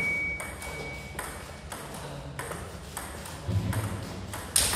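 Table-tennis rally: a celluloid-type ping-pong ball clicking back and forth between rubber-faced paddles and bounces on a Donic table, about one sharp click every half second, the loudest near the end.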